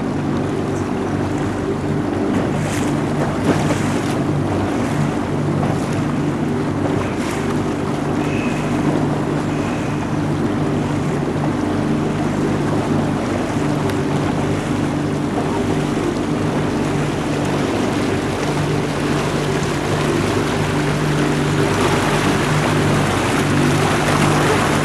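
A boat's engine running steadily with a low drone, under a continuous rush of water and wind noise. The rush grows a little louder near the end.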